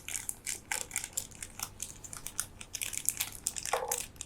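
Plastic packaging crinkling and crackling in a rapid, uneven string of small rustles and clicks as a small pack of earphone ear tips is opened by hand.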